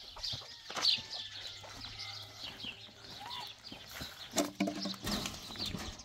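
Small birds chirping again and again, with a chicken clucking now and then and a couple of sharp knocks, about a second in and about four and a half seconds in.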